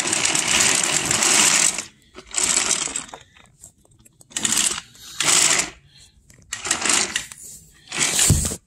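Plastic toy trains rolling and rattling along plastic toy track: a steady run for about the first two seconds, then five short spurts with pauses between.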